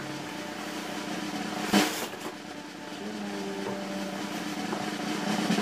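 Cardboard box being handled and shifted by hand, with one sharp knock on the cardboard about two seconds in and a few lighter taps, over a faint steady hum.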